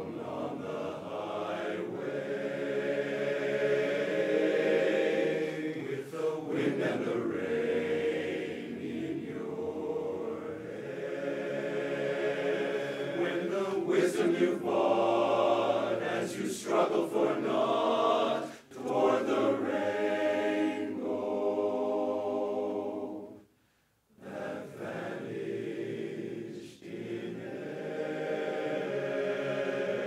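Men's barbershop chorus singing a cappella in close four-part harmony. The sustained chords break off into a brief silence about three-quarters of the way through, then the singing resumes.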